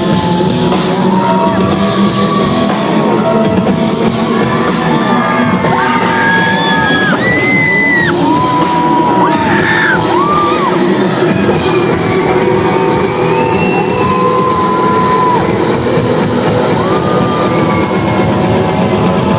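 Live pop concert: loud amplified band music with the crowd screaming and cheering over it, many high screams held and sliding up and down.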